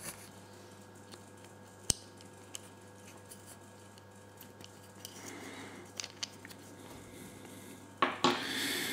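Small plastic and metal parts of a Campagnolo bicycle shifter being handled and fitted together. One sharp click comes about two seconds in and a few fainter clicks follow later, then a rustling scrape of handling near the end.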